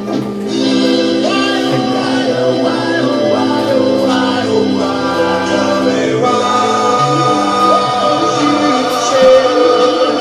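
A song playing: a singing voice carries a melody over held instrumental chords, with choir-like backing voices.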